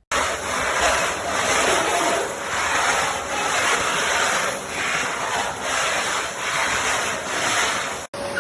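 Cecotec Conga Powerbag 2500 bagged canister vacuum cleaner (850 W) running, a loud rushing airflow that swells and dips about once a second. It starts abruptly and cuts out for a moment near the end.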